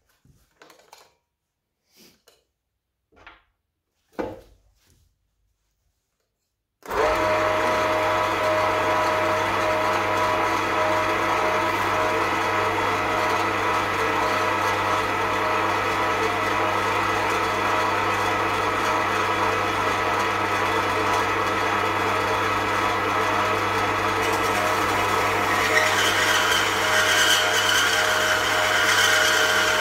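Axminster MCB115SHD metal-cutting bandsaw: a few light clicks, then the motor starts suddenly about seven seconds in and runs steadily with a low hum and the whir of the blade. In the last few seconds a higher hiss and squeal join in as the lowering blade begins cutting into the metal tube.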